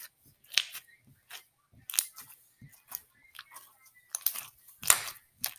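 Homemade slime with foam beads in it being pressed and pushed by hand, giving irregular small crackles, clicks and pops, the loudest near the end.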